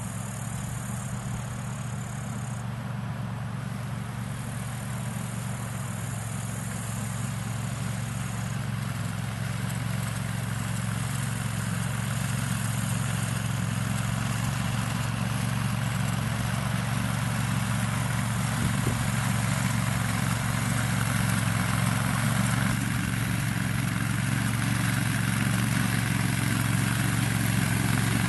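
Brielmaier motor mower's engine running steadily under load as it pushes hay with its front Hill Rake, growing gradually louder as it comes closer.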